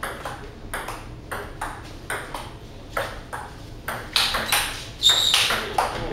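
Table tennis rally: the celluloid ball clicks back and forth off paddles and table, about three strikes a second. The last few strikes, from about four seconds in, are louder, the hard hitting that ends the point.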